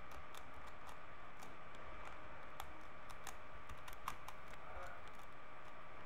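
Plastic 3x3 Rubik's cube turned quickly by hand through a last-layer permutation (PLL) algorithm, its layers clicking several times a second at an uneven pace.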